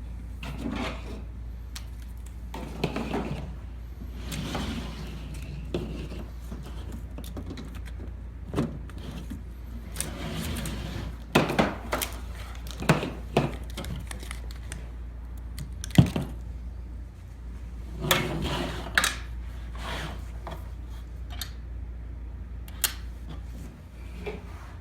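Metal parts being handled on a workbench: scattered clanks and knocks with some rustling, the sharpest click about two-thirds of the way through, over a steady low hum.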